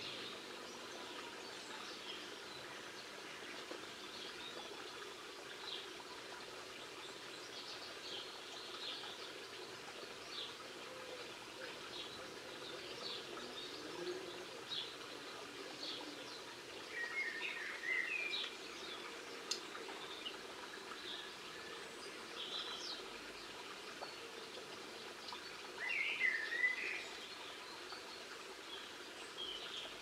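Small songbirds calling: scattered short high chirps throughout, with a brief twittering phrase a little past halfway and another near the end, over steady outdoor background noise.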